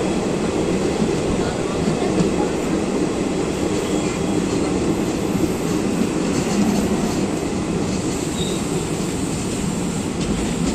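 Moving train running on the rails: a steady rumble of wheels and carriages.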